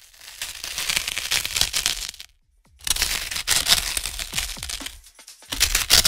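Intro sound effect of harsh crackling and crunching in three bursts, with short breaks about two seconds in and again about five seconds in, over intro music.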